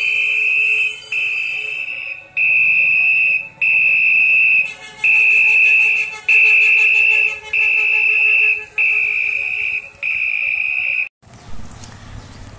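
Electronic beeping from the red horn loudspeaker on a garbage-collection tricycle: a steady high-pitched tone repeated about nine times, each beep roughly a second long with short gaps, stopping about eleven seconds in.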